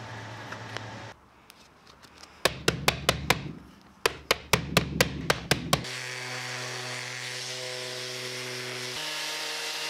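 A quick run of sharp clicks and taps as a Makita cordless random orbit sander is handled, then the sander runs with a steady motor whine from about six seconds in, stepping up in pitch about a second before the end.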